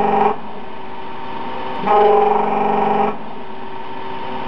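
Slant-bed CNC lathe machining a part in its chuck: a steady machine hum, with a pitched cutting tone that starts and stops sharply. The tone ends just after the start and comes back about two seconds in for just over a second, repeating with each pass of the tool.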